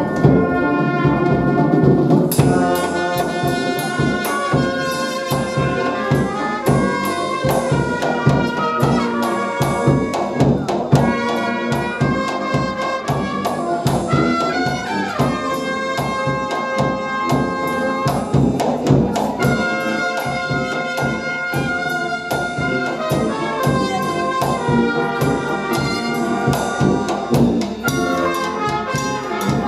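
Brass music: several horns playing held chords and melody lines over a steady beat.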